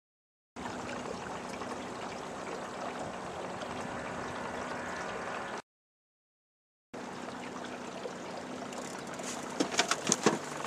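Boat underway while trolling: a steady rush of water along the hull with a faint, low outboard-motor hum, in two stretches broken by a second or so of silence. Near the end come a few sharp knocks.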